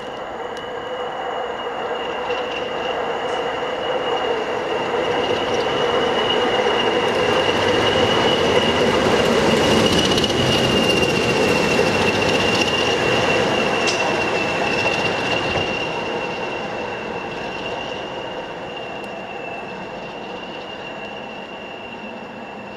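BR Class 20 diesel locomotive running light, its English Electric eight-cylinder engine and the class's high, steady turbocharger whistle growing louder as it approaches, peaking about ten seconds in, then fading as it draws away.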